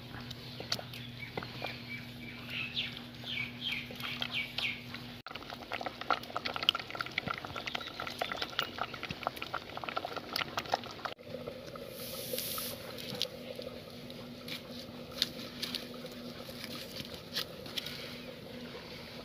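A large aluminium pot of mustard-greens saag boiling hard over a wood fire while being stirred with a wooden stick: bubbling with many small knocks, clicks and crackles.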